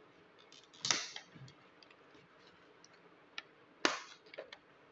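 Plastic packaging crinkling and crackling as hands work a courier mailer bag and a clear plastic blister pack open. There are scattered sharp crackles, the loudest about a second in and just before four seconds.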